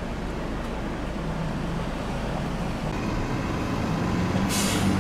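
Campus shuttle bus engine getting louder as the bus draws near, with a short air-brake hiss near the end.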